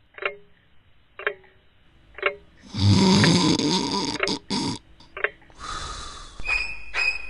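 A sleeper snoring: one loud, rough snore drawn in, then a softer breath out, while a clock ticks about once a second. Bright ringing tones start near the end.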